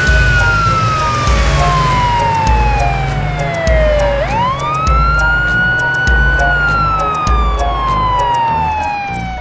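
Police siren sound effect in a slow wail: the pitch falls steadily, sweeps quickly back up about four seconds in, and falls again. Background music with a steady bass beat plays under it.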